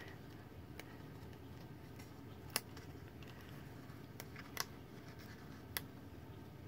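Faint handling of a cardstock box: a handful of small sharp clicks and ticks as fingers fold and press a taped tab, the clearest about two and a half seconds in, over quiet room hiss.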